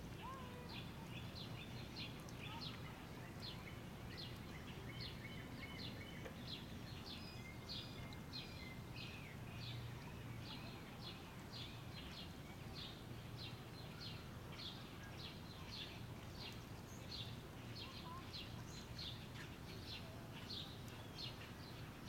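A small bird chirping over and over, short high chirps about twice a second, above a low steady background rumble.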